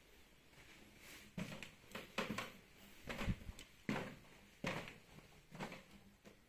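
Footsteps climbing a wooden open-riser staircase: about half a dozen dull footfalls, one roughly every second, starting about a second in.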